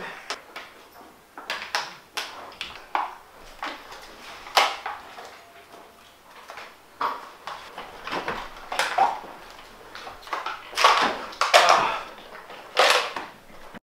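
Plastic water bottle crinkling and knocking as it is handled and drunk from, in a run of short, irregular crackles and clicks that cut off just before the end.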